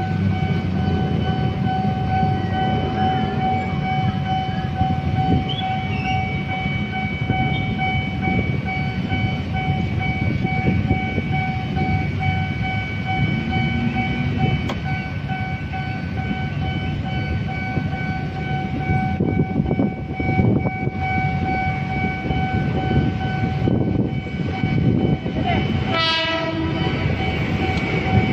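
KRL commuter electric trains (ex-JR 203 and 205 series) running through a level crossing, with wheels and motors rumbling under a steady high ringing tone that holds until about two seconds before the end. Train horns sound as the two trains meet.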